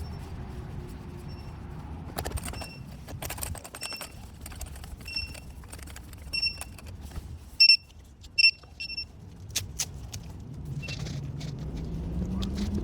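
FPV quadcopter's lost-model buzzer beeping after a crash: short high beeps about once a second, loudest and sharpest around eight seconds in. Scattered clicks and knocks over a steady low rumble.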